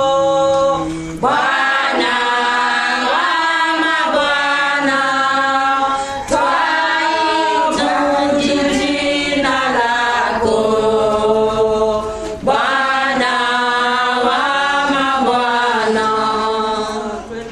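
A choir singing a Swahili hymn in harmony, in long sustained phrases, fading away at the very end.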